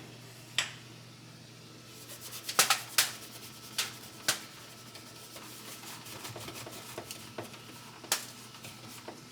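Rubbing and scrubbing on greasy metal range-hood parts with baking soda and a rag, broken by sharp clicks and knocks as the parts are handled, the loudest a few close together about two and a half to three seconds in.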